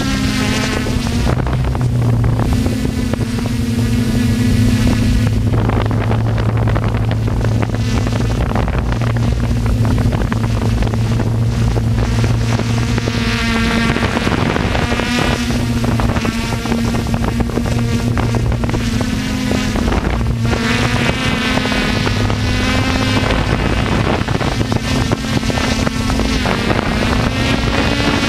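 Radio-controlled aircraft motors and rotors running steadily in flight. The pitch wavers a little as the throttle shifts, with wind buffeting the microphone.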